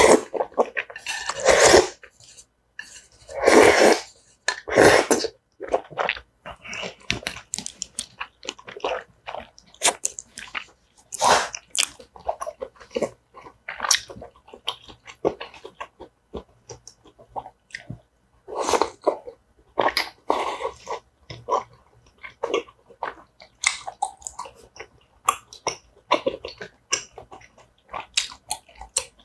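Close-miked eating of tteokbokki, chewy rice cakes and noodles in sauce: loud slurps of noodles now and then, the strongest in the first five seconds, between runs of chewing with many short, wet mouth clicks.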